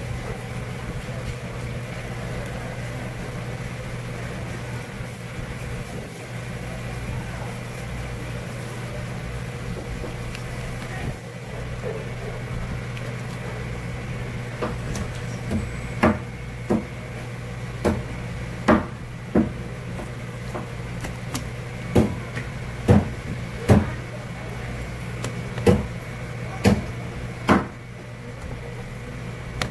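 A steady low mechanical hum, and from about halfway a series of about a dozen sharp knocks at irregular intervals, roughly a second apart.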